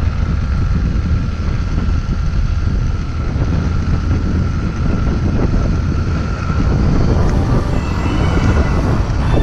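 Honda CRF150 dual-sport motorcycle's single-cylinder engine running steadily under way, with wind rushing over the microphone.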